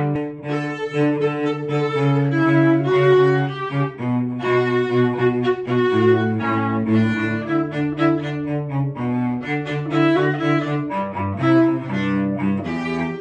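Viola and cello playing a bowed duet, the cello sustaining low notes under the viola's higher melodic line, with notes changing every half second to a second or so.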